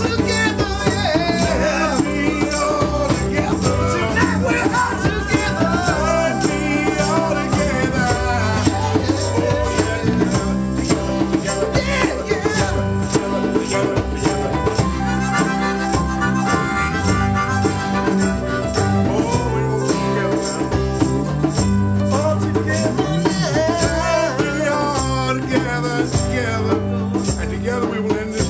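Recorded band music: a song with bass and drums keeping a steady beat throughout.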